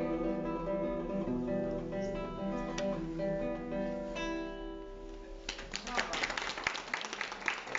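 Acoustic guitar playing the closing chords of a song, ringing out and fading. About five and a half seconds in, audience applause begins and carries on.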